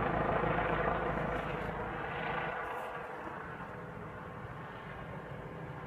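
Steady rushing drone from the sky, the kind of sound taken for a passing aircraft. It dies down over about the first three seconds, then holds at a lower level.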